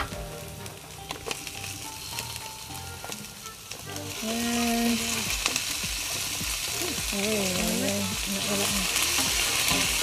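Raw chicken strips sizzling in hot oil with onions and garlic in a wok on a portable gas burner. The sizzle grows clearly louder about four seconds in as the chicken goes in, and the pieces are then stirred with a wooden spatula. A sharp knock right at the start.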